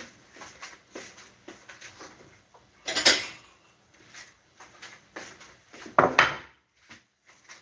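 Kitchen clatter of dishes and utensils being handled, with small knocks throughout and two louder clatters, about three seconds in and about six seconds in, the second as a bowl is set down on the counter.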